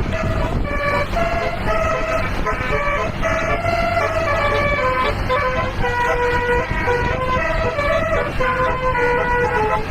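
Bus's basuri telolet horn playing a melody of changing tones, over engine and road noise.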